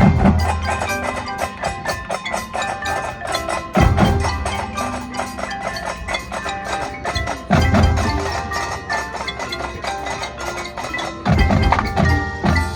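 Marching band playing, with mallet percussion and quick percussive strikes prominent over held pitched notes. Heavy accented hits with a deep low end come about every four seconds.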